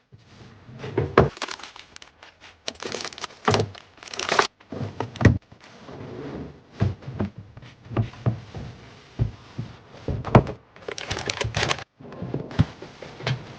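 Plastic food packaging crinkling and containers being set down with irregular thunks and knocks, as items are handled and packed into a freezer.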